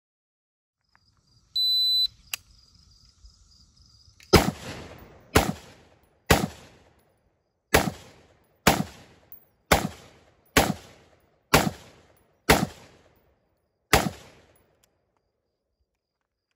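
A shot-timer start beep sounds once, and about two seconds later a 5.56 Troy P7A1 AR-15 pistol fires ten shots, roughly one a second, each crack with a short echo. The last shot comes after a slightly longer gap.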